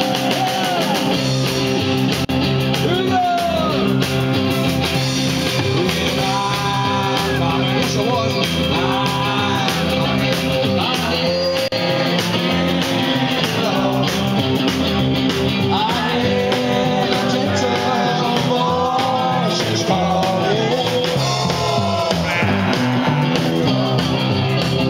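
A live rock and roll band playing: electric guitar and drum kit with a man singing lead through the PA, going steadily throughout.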